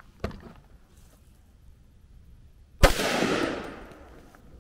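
A single rifle shot from an AR-style rifle chambered in .300 Blackout, about three seconds in, with an echo that trails off over about a second and a half. A light click comes just before it, near the start.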